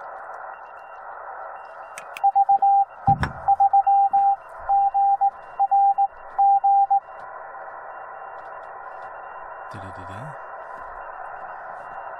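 Yaesu FT-891 HF transceiver's speaker giving steady narrow-band receiver hiss, with a single-pitch Morse code (CW) tone keyed in dots and dashes for about five seconds starting two seconds in. A single thump about three seconds in.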